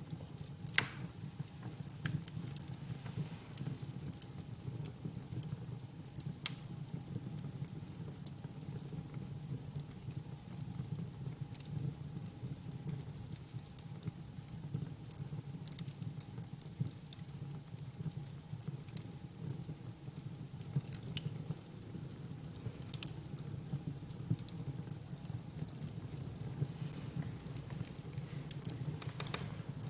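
Wood fire burning, crackling with scattered sharp pops over a steady low rumble. The loudest pop comes about a second in.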